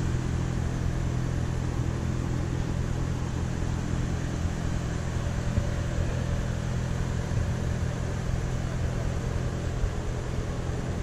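A moving vehicle's engine running at a steady drone, with continuous road and wind noise, heard from on board.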